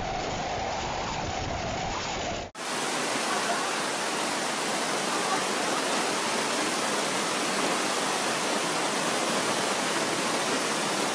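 Storm noise: a steady rushing hiss of rain and water. About two and a half seconds in it changes abruptly to a brighter, even hiss with no low rumble.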